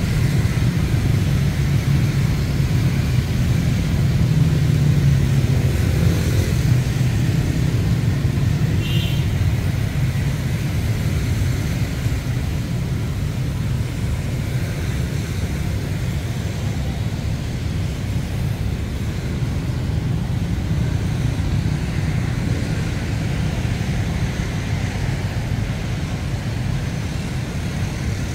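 Steady road traffic on a busy city street: cars and motorbikes passing in a constant low engine rumble.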